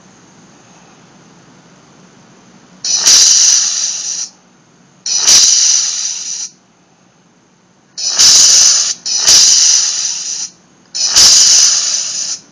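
Lightsaber sound effects played by a sound-effect test circuit through a small speaker: five bright, noisy bursts about a second long each, every one starting sharply and fading out, the fourth and fifth close together. A faint steady high tone and a low hum carry on between them.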